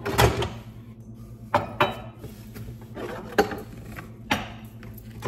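Ceramic mugs, bowls and glass tumblers being set down on a cabinet shelf: several separate clinks and knocks, each ringing briefly, over a steady low hum.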